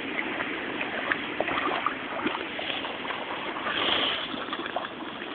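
A rottweiler swimming in a brook: water sloshing and splashing irregularly around it as it paddles, over a steady rush of noise, a little louder about four seconds in.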